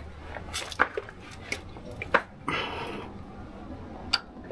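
Small plastic clicks and taps from pushing the oil filter drain funnel into the cap of the filter housing under the truck, with a short rushing noise about two and a half seconds in.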